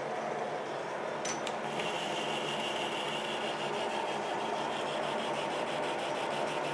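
Metal lathe running with a steady motor and gearbox hum. About a second in there are two sharp clicks, then the tool starts cutting the steel shaft and adds a high scraping hiss that pulses rapidly, an interrupted cut on a bent shaft.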